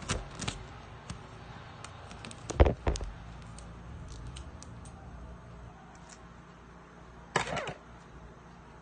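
Paper and scissors being handled at a table: scattered small clicks and rustles, with a loud knock about two and a half seconds in and another thump near the end.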